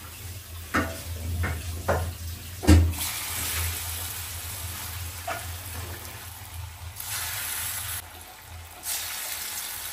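Masoor dal pakora batter dropped into hot oil in an iron kadai: a few knocks in the first three seconds, the loudest near three seconds in, then steady sizzling of frying fritters that swells as more batter goes in. A low steady hum runs underneath.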